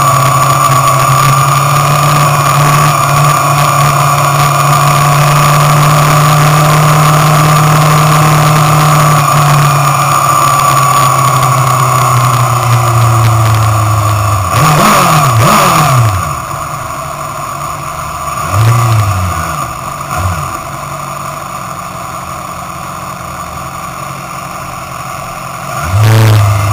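Motorcycle engine heard from an onboard camera, running steadily at low speed for about fourteen seconds. It then revs up and down briefly, drops to a quieter idle-like running, and gets two short throttle blips, one in the middle of the second half and one near the end.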